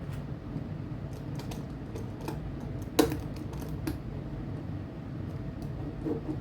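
Light clicks and taps of a small plastic HO scale model locomotive being handled and set on the track, with one sharper knock about three seconds in, over a steady low hum.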